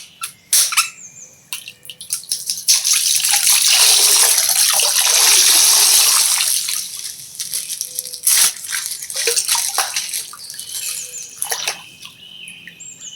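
A small plastic bag full of water is burst, and the water pours and splashes out for about four seconds. Crinkling and tearing of the plastic bag come before and after the pour.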